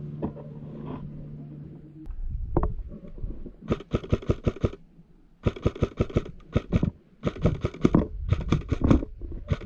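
Airsoft rifle firing rapid bursts of several sharp shots each, starting a few seconds in, after a steady low hum.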